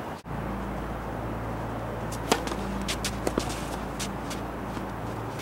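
Sharp knocks of a tennis ball being hit and bouncing on an outdoor hard court. The loudest comes a little over two seconds in, with several more in quick succession about a second later, over a steady low hum.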